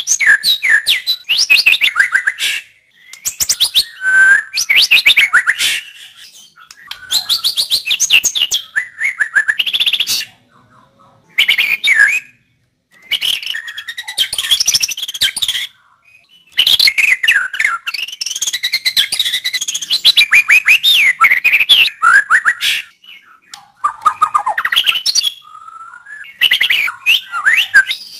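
White-rumped shama singing loudly in varied phrases of rapid whistled and chattering notes, each phrase one to a few seconds long, with short pauses between them.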